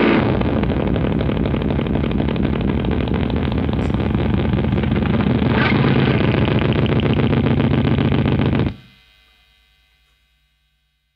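The end of a noise-rock song: a dense wall of distorted guitar noise that cuts off abruptly near the end, leaving a faint ringing tail that fades out within about two seconds.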